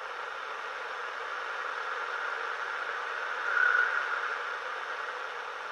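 Receiver static from a Cobra 2000 GTL CB radio hissing through its speaker, with no whine from the newly added cooling fan in it. The hiss swells to its loudest about three and a half seconds in, then eases off.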